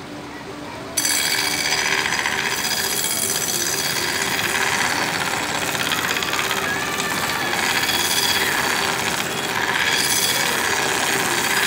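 Steel knife blade pressed against the running abrasive belt of a belt grinder, a loud, even grinding that starts about a second in over the machine's steady hum and stops sharply near the end as the blade is lifted off. The blade is being ground to a distal taper, thinning gradually toward the tip.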